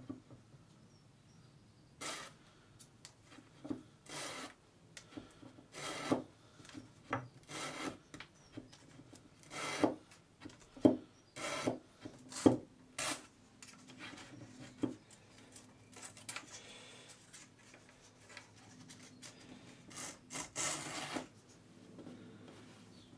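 Wooden guitar neck heel being pushed into and worked in the body's neck pocket during a dry test fit: irregular short wood-on-wood rubs and scrapes with a few sharp knocks, the loudest about halfway through, then quieter for a few seconds before more rubbing near the end.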